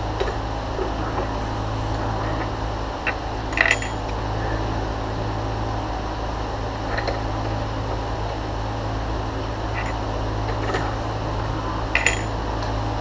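A few light metallic clinks of drill bits and chuck tooling being handled at a milling machine, over the steady hum of shop fans.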